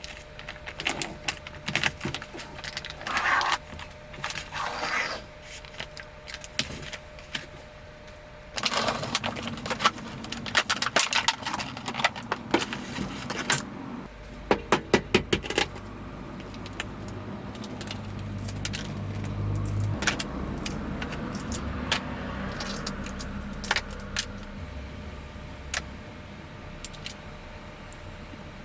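Repeated clinking, clicking and rattling of small hard objects being handled, with rustling. A quick run of clicks comes in the middle, and a low rumble and hum runs under the later part.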